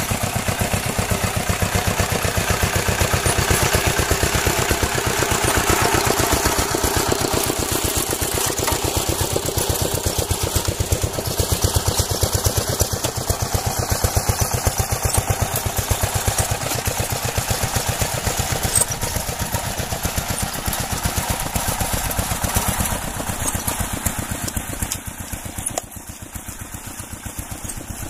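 An engine running steadily with a fast, even pulsing, a little quieter near the end.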